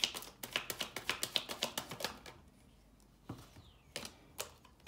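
A deck of tarot cards being shuffled by hand: a quick run of card clicks and slaps, about six a second, for the first two seconds, then a few single taps of cards.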